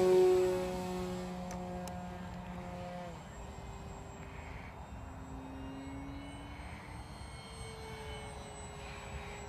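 Electric brushless motor and propeller of an E-flite Maule M7 RC plane running at high throttle with a steady whine, loudest at the start as the plane climbs out. About three seconds in the whine drops in pitch and fades as the plane moves away.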